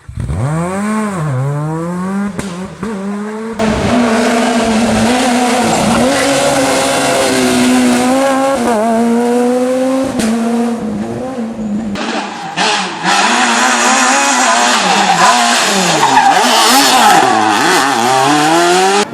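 Super 2000 rally cars driven hard on a stage, engines revving up and dropping back repeatedly through gear changes and lifts, with abrupt changes about three and a half and twelve seconds in as one car's sound gives way to another.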